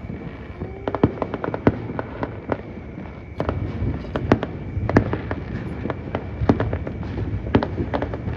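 New Year fireworks going off: a rapid, irregular string of sharp bangs and cracks over a rumble of distant bursts, which grows denser and louder about three and a half seconds in.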